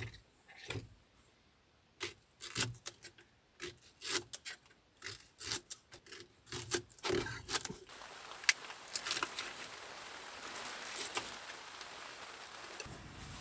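Kitchen knife chopping a Japanese long green onion (negi) into chunks on a wooden cutting board: a run of irregular sharp knocks of the blade on the board for about six seconds. After that comes a steadier crackling scrape with scattered ticks.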